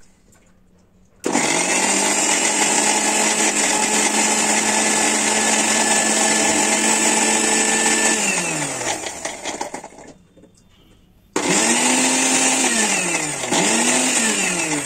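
Mixer grinder with a stainless steel jar grinding ginger and garlic into a paste. The motor starts about a second in, runs steadily for about seven seconds and winds down, falling in pitch. About two seconds later it is switched on again and pulsed, dipping twice, then runs on.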